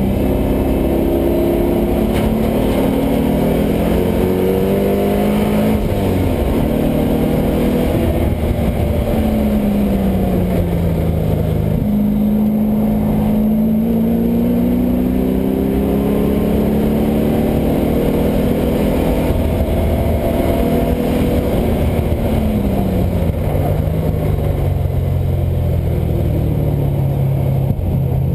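LS1 V8 engine in a Mazda Miata running hard on track, its note climbing under acceleration and dropping off several times as it shifts and lifts, then holding a lower pitch near the end.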